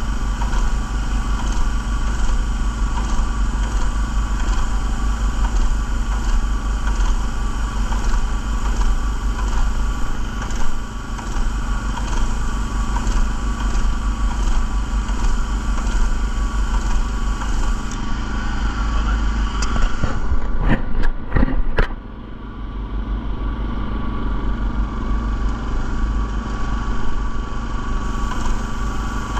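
Walk-behind airless line-striping machine: its small gas engine runs steadily under a hiss of paint spraying. About 20 seconds in there are a few sharp clicks and the hiss drops away, leaving the engine running on alone.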